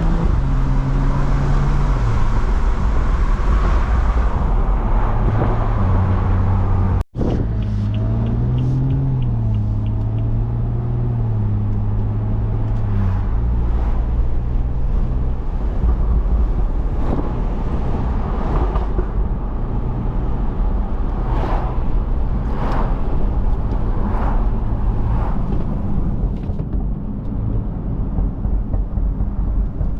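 BMW F30 335i's turbocharged N55 inline-six, running catless on a Stage 2 tune, heard from inside the car while it is driven; the engine note shifts up and down with throttle and gear changes. The sound cuts out for an instant about seven seconds in.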